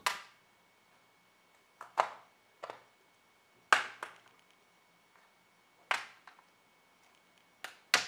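The base cover of a Dell XPS 15 9500 being pried off with a plastic opening tool: its retaining clips snap loose one after another in sharp clicks, about one every second or two, some in quick pairs.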